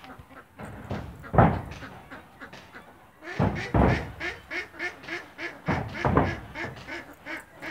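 Farm animals calling: a quick run of short, repeated calls at about four a second, with louder single calls about a second and a half, four and six seconds in.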